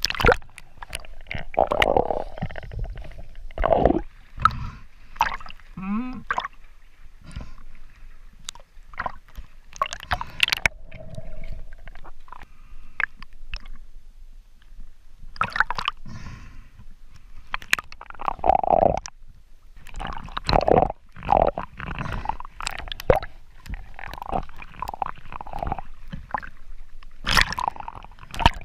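Water sloshing and gurgling around a camera held half-submerged at the waterline, in irregular bursts with sharp splashy clicks and bubbling.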